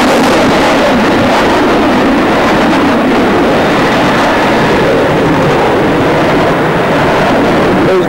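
Jet aircraft engines, a loud steady rushing noise.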